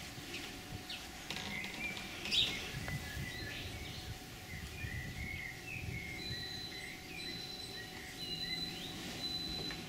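Small birds chirping and twittering in short calls over a low, uneven rustling noise, with a thin high whistle coming and going in the second half.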